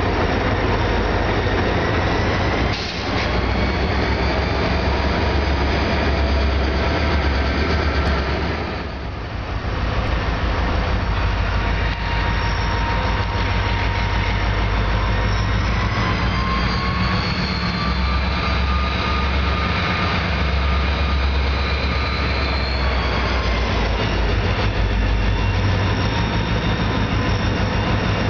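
Wheeling & Lake Erie diesel freight locomotives rolling past close by, their engines a steady low rumble under the noise of the train on the rails. Through the second half the wheels squeal on the rails, in thin high tones that slide up and down in pitch.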